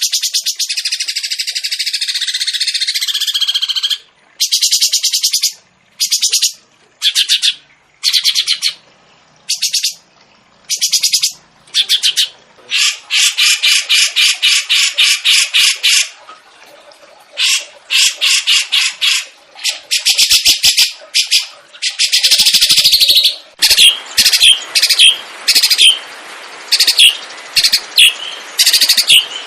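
A songbird sings loud, very fast trills in repeated bursts of about half a second to three seconds, with short pauses between them. Near the end the song breaks into short, sharp notes over fainter background chatter.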